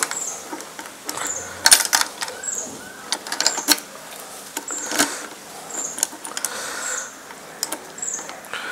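Metallic clicks and rattles of a key being worked in the stiff fuel-tank cap lock of a Yamaha RD350, a cap that won't readily open with this key. A short high chirp, likely a bird, repeats about once a second.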